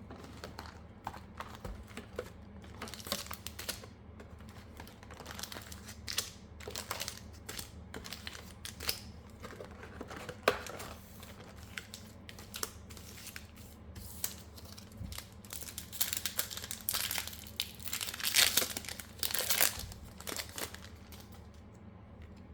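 Foil wrapper of a Pokémon trading card booster pack crinkling and being torn open, a run of irregular crackles and rips that grows busier and louder near the end.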